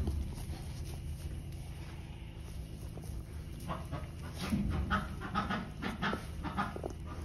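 Puppy panting in quick short breaths, about three a second, starting about halfway through, over a steady low rumble.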